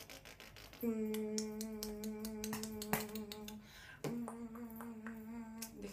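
A boy's voice holding two long, steady notes, the first starting about a second in and the second about four seconds in, over a run of sharp clicks.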